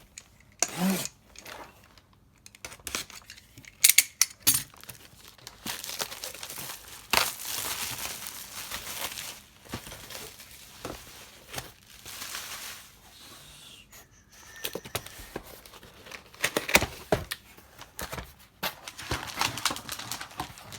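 Packaging on a comic book box being torn open and crumpled by hand, in irregular rustling stretches broken by sharp clicks and knocks of handling.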